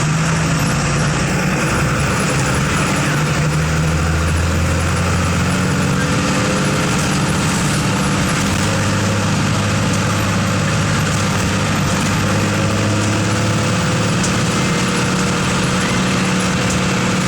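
Diesel engine of a Volkswagen 17.210 EOD Euro III bus running steadily, its pitch shifting slightly a few seconds in and then holding.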